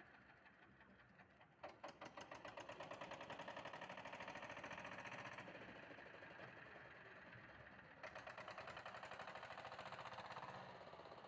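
A vehicle engine running, heard faintly, with a fast, even pulsing.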